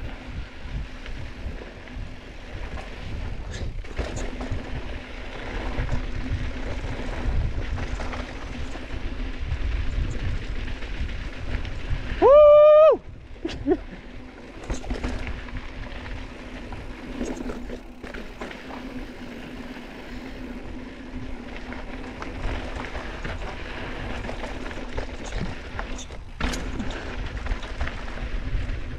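Riding a mountain bike down a dry dirt trail: a steady rumble of wind on the camera microphone mixed with tyre and trail noise. About halfway through comes a loud high-pitched tone that lasts under a second and glides up at its start.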